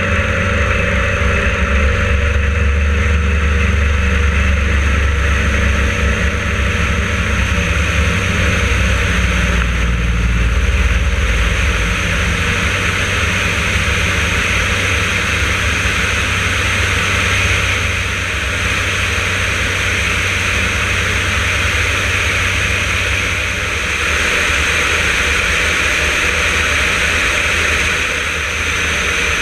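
Yak-52's nine-cylinder M-14P radial engine and propeller running through the takeoff run and climb, with air rushing over a wing-mounted microphone. The sound shifts about ten seconds in, with more rushing noise after.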